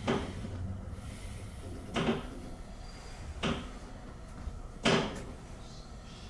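Kintetsu Hinotori (80000 series) train's wheels knocking over rail joints and points as it moves off slowly, under a low running rumble. There are four knocks, coming a little closer together as the train gathers speed.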